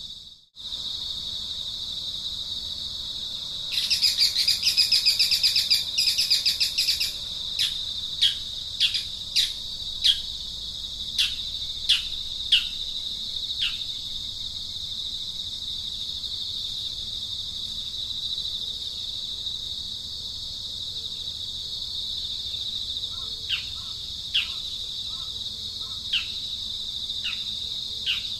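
A steady, high-pitched insect trill with birds calling over it. A fast, loud chattering trill comes a few seconds in, then a run of short downward chirps, and a few more chirps near the end.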